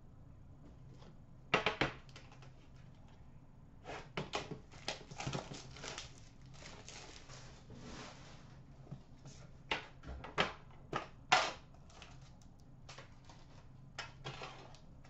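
Trading card packs and a metal card tin being handled: a stretch of crinkly rustling in the middle, and scattered sharp clicks and taps before and after it.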